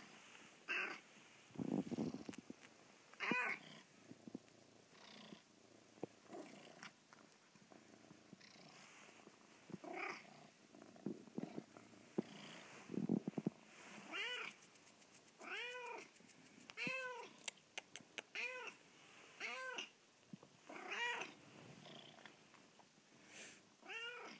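Domestic cat whining close up: about ten short meows, each rising then falling in pitch, spaced out at first and coming about every second and a half in the second half. These are a cat's calls to get her owners out of bed in the morning.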